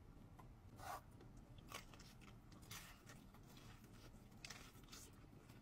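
Faint eating sounds: a few short, soft smacks and crunches from biting into and chewing a fried chicken tender, the strongest about a second in.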